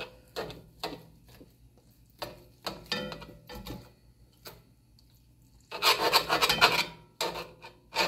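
A knife sawing back and forth through a steak in a cast-iron skillet, its blade scraping the pan: a few short strokes, then a quicker, louder run of strokes about six seconds in.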